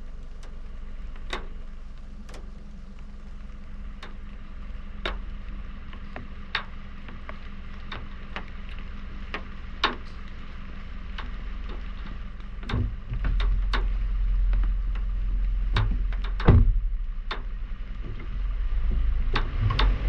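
Water drops ticking irregularly on a roof-mounted action camera over a car idling at a standstill in the rain. About two-thirds of the way in, a low engine and road rumble swells as the car pulls away, with a single loud thud shortly after.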